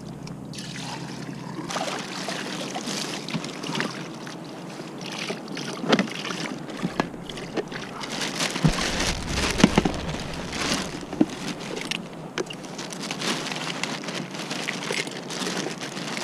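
Seawater splashing and sloshing as a plastic live bait bucket is dipped into the sea and filled, then handled on the kayak, with many short knocks and clicks of the plastic.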